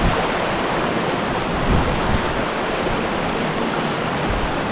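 Mountain creek rushing steadily, running full and fast.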